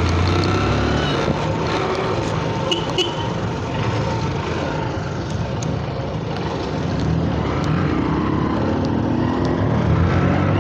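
Motorcycle engine running while riding in city traffic, its pitch rising near the end as it speeds up.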